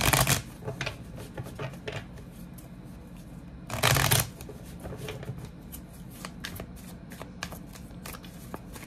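A deck of tarot cards being shuffled by hand: two louder bursts of shuffling, at the start and about four seconds in, with light card flicks and taps in between.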